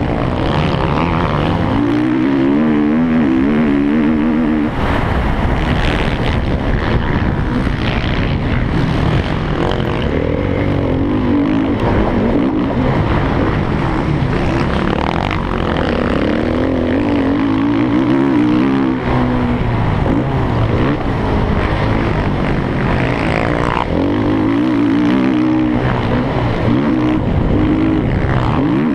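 Motocross bike engine racing hard, revs climbing and dropping again and again as the rider works through the gears and backs off for corners, heard close up from a camera mounted on the bike.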